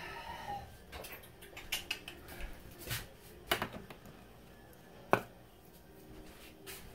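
Light kitchen clatter: a few scattered clicks and knocks, the loudest a single sharp click about five seconds in. A brief pitched sound is heard at the very start.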